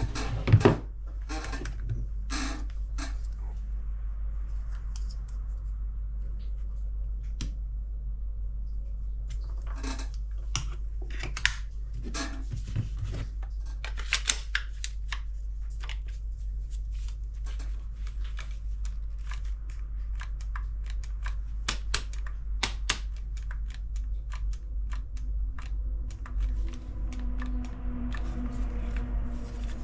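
Irregular clicks, knocks and rattles of a Bosch GST 18V-LI cordless jigsaw being handled, its 18 V battery pack slid in and out, over a steady low hum.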